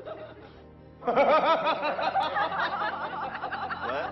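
A truck's aftermarket novelty horn plays a long, loud recorded laugh starting about a second in, made of rapid rising-and-falling syllables.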